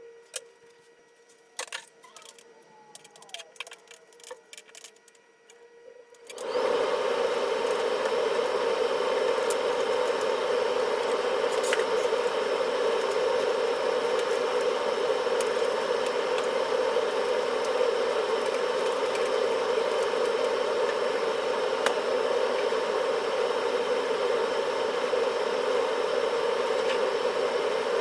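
A few faint clicks and taps, then about six seconds in a loud, steady mechanical hum with a strong droning tone starts suddenly and holds without change.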